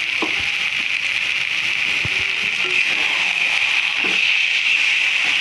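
Thick fish-head and eggplant curry sizzling steadily in a hot metal kadai while a metal spatula stirs and scrapes through it, with a few light knocks of the spatula against the pan.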